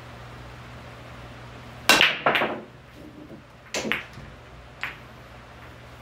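Pool break shot: a loud crack about two seconds in as the cue ball smashes into the racked balls, quickly followed by a second clack, then two fainter clacks of balls hitting each other and the rails about two and three seconds later. A steady low fan hum runs underneath.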